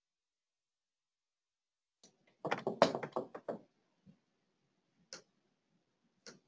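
Faint clicks and knocks in a small room: a quick cluster of them a couple of seconds in, then two single clicks.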